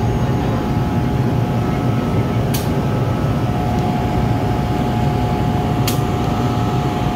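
Steady low rumble with a constant hum, the trackside noise of an electrified railway line, with two brief sharp ticks about two and a half and six seconds in.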